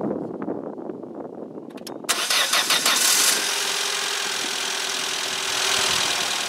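Small car's petrol engine cranked by its starter motor on power from an old truck battery, catching after about two seconds and settling into a steady idle. The battery voltage rising to about 14.9 V shows the engine running and charging.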